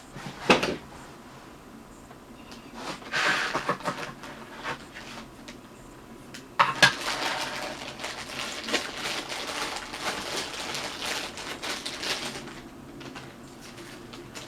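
Wood stove being tended: sharp metal clanks and knocks, then a stretch of scraping and rustling as the fire is stoked.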